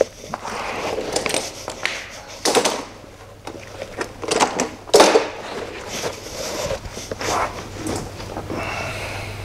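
Irregular scuffs, rustles and knocks of a mechanic getting down and sliding under a car on a concrete workshop floor, with the loudest knock about five seconds in. A low steady hum sets in near the end.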